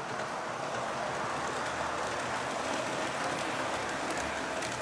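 O scale model train, an F-unit diesel locomotive pulling freight cars, running along the track: a steady rolling, whirring noise of wheels and motor, with a few faint clicks.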